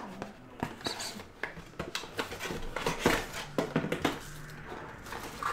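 A cardboard box being opened and handled: irregular rustling, scraping and light taps as a plastic-wrapped baseball and its cardboard insert tray are pulled out.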